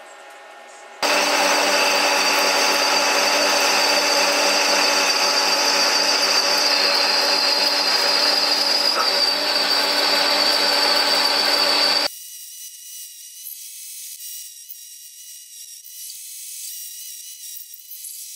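Metal lathe drilling a D16T aluminium bar with a large twist drill, a loud steady machine whine made of several steady tones. About 12 seconds in it drops abruptly to a quieter, thin, high-pitched sound.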